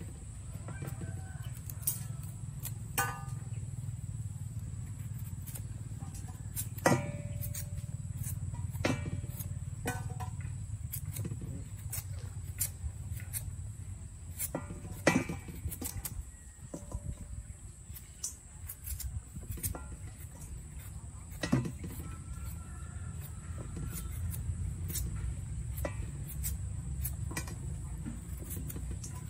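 Kitchen knife peeling the skin off a green mango: short, crisp cutting clicks at irregular intervals over a steady low rumble.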